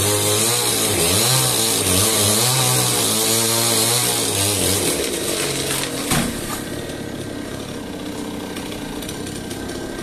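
Chainsaw cutting through a neem tree trunk, its engine pitch rising and falling under load, easing off about five seconds in. About six seconds in there is a heavy thud as the cut trunk falls, and afterwards a quieter steady running sound.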